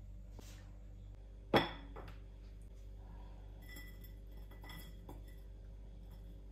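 Kitchen utensils and dishes clinking: one sharp clink about a second and a half in, then a few lighter taps and clinks.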